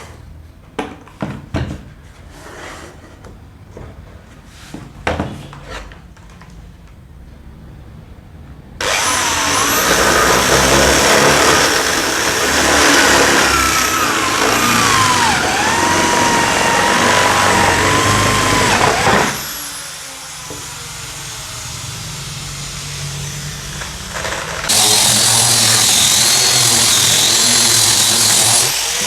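Power tools working wood. First come scattered knocks. Then about ten seconds of a loud machine cutting, its whine wavering in pitch. After a quieter lower hum, a second loud run with a steady high whine starts near the end.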